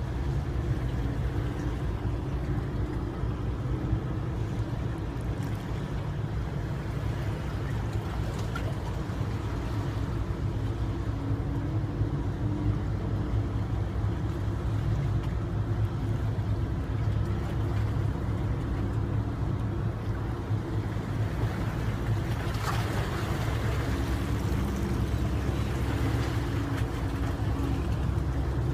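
Steady low drone of a boat engine running, with a hiss that swells about two-thirds of the way through.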